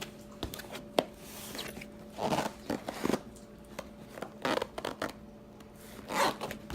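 Cardboard box being opened and handled: flaps scraping and rustling in short spells, with a few light knocks, over a faint steady hum.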